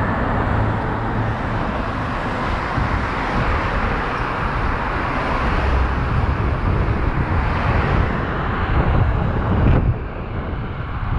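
Rushing noise of a bike ride along city streets: wind over the microphone mixed with passing car traffic. It is steady and loud, easing off a little near the end.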